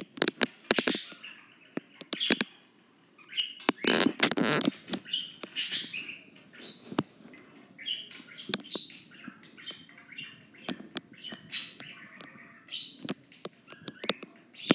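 Rustling and sharp clicks of hay and litter being disturbed in a baby dwarf rabbit's cage, with short high chirps scattered throughout.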